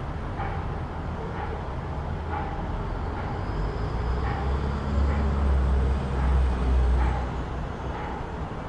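City street traffic: a steady low rumble with a heavy vehicle passing close, its low engine rumble loudest a little past halfway through. Faint short ticks repeat about once a second.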